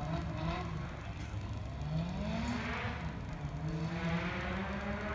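Race car engine climbing the hill out of sight, pulling hard: its pitch rises about two seconds in, levels off after a gear change, and rises again near the end.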